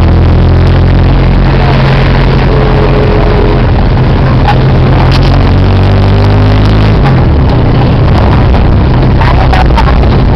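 Loud, steady engine drone and road noise from a moving vehicle in highway traffic; the engine note changes abruptly about seven seconds in.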